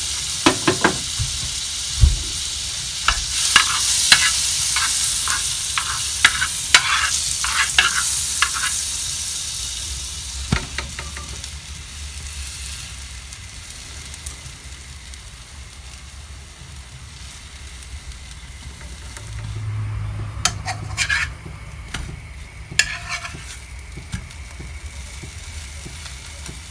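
Slices of bread toasting in melted butter in a hot pan, sizzling, with a spatula clicking and scraping against the pan as the bread is turned. The sizzle is strongest for the first ten seconds or so, then dies down.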